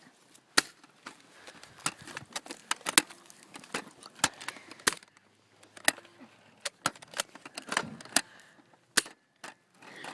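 Nerf dart blasters being primed and fired: a rapid, irregular run of sharp clicks and snaps, a few each second.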